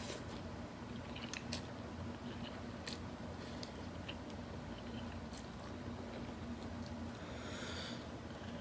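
Close-up eating sounds: a person chewing food, with scattered small wet clicks of the mouth, and a breath near the end.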